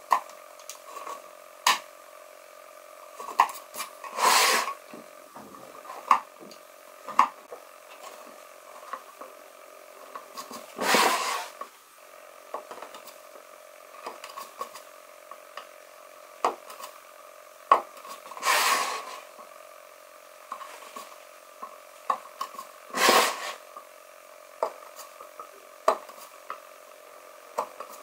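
Workshop handling sounds of tools and wood: scattered sharp knocks and clicks, with four longer noisy strokes about a second long, over a faint steady hum.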